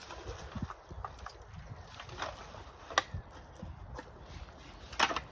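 Rubbish being picked up and handled: scattered knocks and clicks, with two sharp clacks about three seconds in and near the end.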